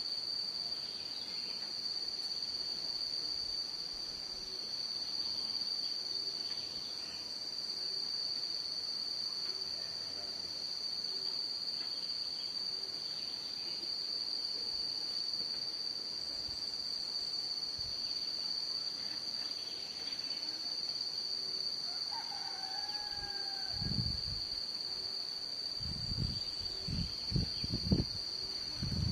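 Insects, such as crickets or cicadas, keeping up a steady high-pitched drone. About two-thirds of the way in a single short falling bird call sounds, and near the end a run of low thuds comes in.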